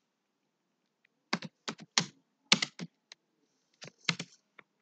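Keys being typed on a computer keyboard: after a silent first second or so, about a dozen key clicks come in short, irregular runs.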